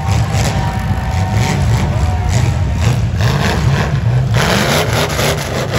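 Demolition derby cars' V8 engines revving loud and uneven, pitch rising and falling, with a rush of higher noise joining about four and a half seconds in.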